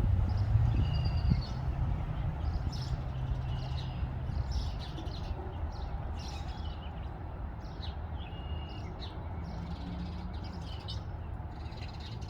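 Red-winged blackbirds chirping in bushes: many short, high chirps and brief whistled notes, over a steady low rumble.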